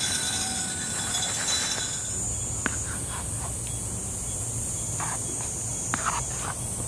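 Outdoor ambience: a steady high-pitched insect drone, with a few short chirps or clicks in the second half.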